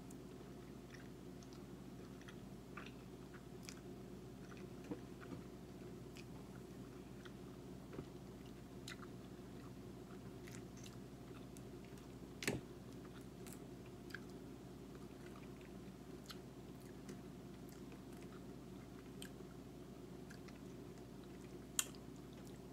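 Quiet chewing and mouth sounds of a person eating a mouthful of angel hair pasta in Alfredo sauce, over a steady low hum. Small clicks are scattered throughout, with a louder click about twelve seconds in and another near the end.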